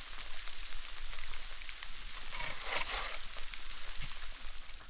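A steady outdoor hiss with scattered small ticks, and a dull knock about four seconds in.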